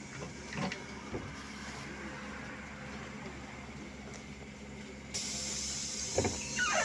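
A trolleybus standing at a stop with its door open: a steady low hum with a couple of light knocks, then a hiss that comes in about five seconds in. A high whining cry begins near the end.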